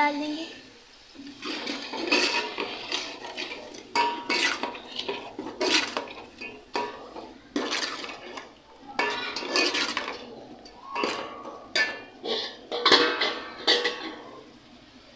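A metal spoon scrapes and clinks against a metal cooking pot while a thick tomato-onion masala is stirred and fried down. There are repeated irregular strokes, about one a second, and they stop shortly before the end.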